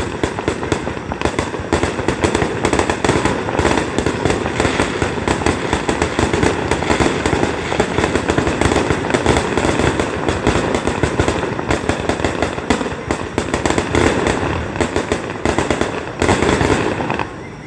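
Aerial firework shells bursting in a rapid, continuous barrage of bangs and crackling. The barrage stops abruptly near the end.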